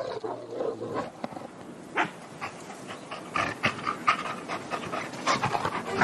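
A pack of wolves snarling and growling at one another over a fresh kill, with panting and short, irregular snaps and calls that grow busier in the second half.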